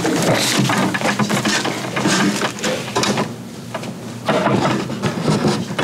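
Rustling and light wooden knocks from people moving about and handling papers and furniture, with a quieter spell a little past the middle.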